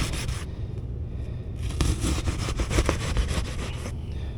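Ductwork being cut open by hand, rapid rasping cutting strokes in two stretches, briefly at the start and again from about one and a half seconds until near the end, over a steady low hum from the running HVAC system.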